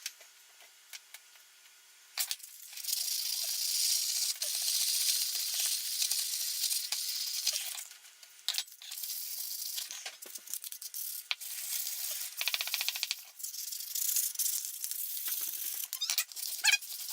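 Abrasive scraping on metal in long continuous stretches, then shorter strokes with pauses and a few sharp clicks, typical of scrubbing rust off an old hand plane.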